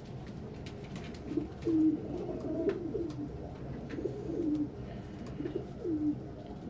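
Several domestic pigeons in a loft cooing, their low coos repeating and overlapping, with faint scattered clicks.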